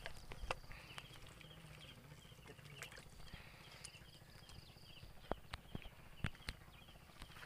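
Faint outdoor ambience: a high chirping call from small animals, repeated in quick even series. Through it come a handful of sharp knocks, the loudest a little past five and six seconds in.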